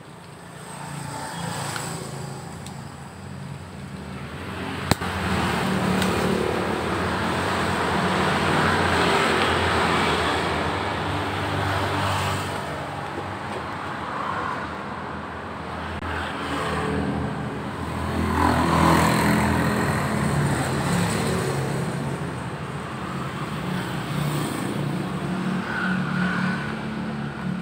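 Road traffic: motor vehicles passing, the engine noise swelling and fading several times, with one sharp click about five seconds in.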